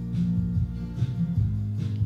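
Background instrumental music with a steady beat.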